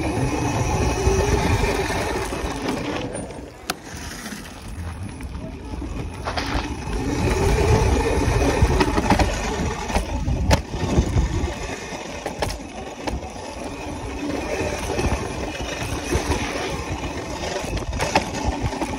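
Small dirt bike being ridden on a dirt track, heard from its handlebars: wind rushing over the microphone and the engine running, its revs rising and falling, with sharp knocks and rattles from the bumps.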